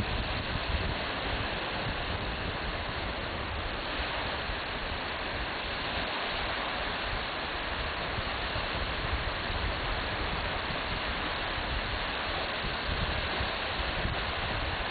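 Wind blowing across the camera microphone: a steady rushing noise with a low, fluttering buffet.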